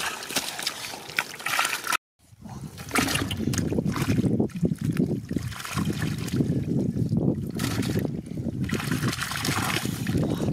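Shallow water splashing and trickling, with small clicks. About two seconds in, the sound cuts out briefly, and then a louder, low rushing noise of sloshing water follows.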